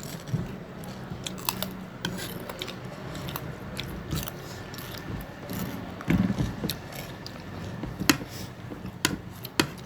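People eating biryani: chewing, with scattered small clicks and taps throughout and a duller bump about six seconds in. A low steady hum runs underneath.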